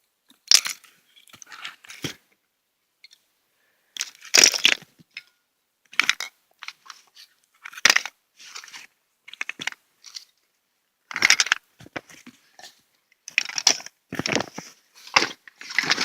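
Rummaging through a bag of gear: irregular bouts of crinkling, rustling and clicking as items are handled, with short pauses between them.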